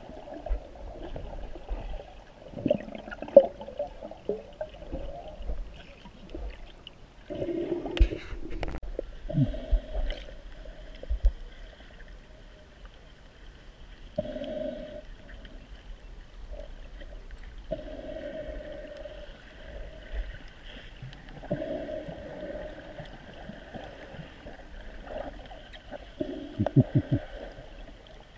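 Muffled gurgling and bubbling water coming in bursts of a second or so, with scattered sharp knocks, the loudest cluster near the end.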